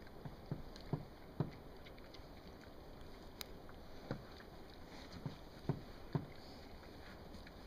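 Pigs feeding on hay: short, irregular low chewing and rooting sounds that come in small clusters, over a steady faint hiss.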